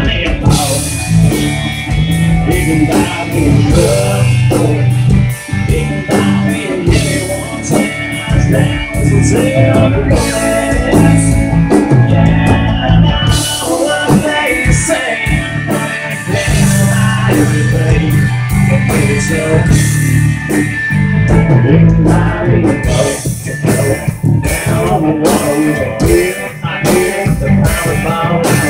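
Live band music: a strummed acoustic guitar with bass and a drum kit keeping a steady beat, and a man singing over it.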